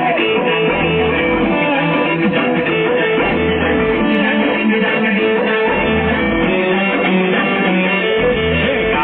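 Dance music led by strummed guitar, with recurring low bass hits under it.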